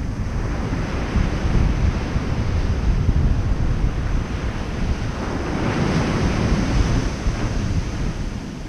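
Ocean surf: small waves breaking and washing up a sandy beach, with wind rumbling on the microphone. A wave's hiss swells about six seconds in, then fades.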